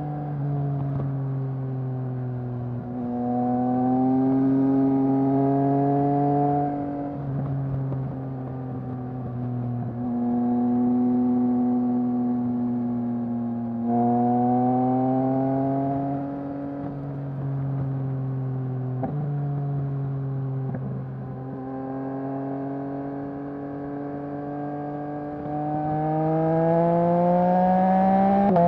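2021 Yamaha MT-09's three-cylinder engine through a Mivv full-system exhaust, pulling under way: its pitch climbs gently and drops suddenly several times as it shifts gears, with a sharp click once about two-thirds of the way through.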